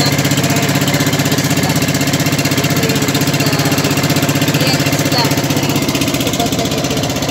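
Outrigger boat's engine running steadily, with a fast, even chugging pulse.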